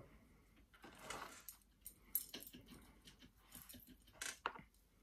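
Faint handling sounds of bonsai wire being wound onto a young yew: scattered rustles and a few light clicks, with a sharper click about two seconds in.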